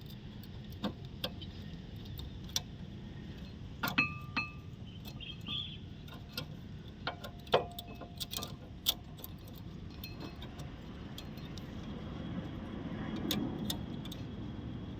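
Scattered metallic clicks and clinks, a few of them ringing briefly, from a brake pad and caliper hardware being handled and fitted on a car's front disc brake.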